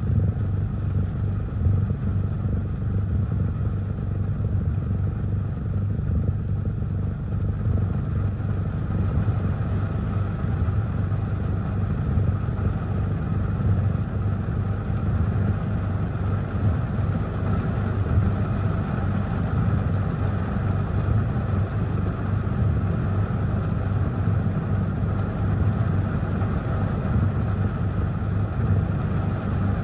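Heavy rain and gusting wind heard from inside a car: a steady low rumble with a hiss of rain over it.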